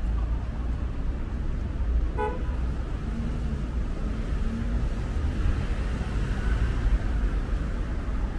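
City street traffic making a steady low rumble, with one short vehicle horn toot about two seconds in.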